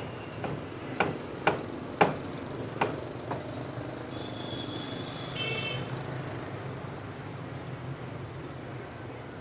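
Cleaver chopping meat on a wooden chopping block, about two strikes a second for the first three seconds or so, then stopping. A steady low hum of street traffic runs underneath, with a brief high-pitched tone around the middle.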